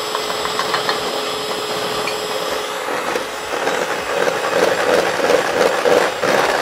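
Electric hand mixer running, its beaters whipping a creamy batter of butter, sugar, eggs and oil in a stainless steel bowl. About three seconds in it grows louder and turns into a rhythmic swishing, a few pulses a second, as the beaters are swept around the bowl.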